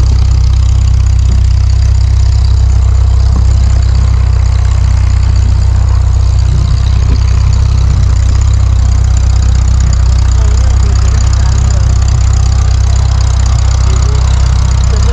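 An engine idling with a loud, deep, steady hum.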